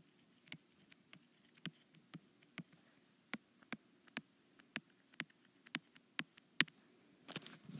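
Stylus tapping on an iPad's glass screen during handwriting: a string of faint, short clicks at about two a second.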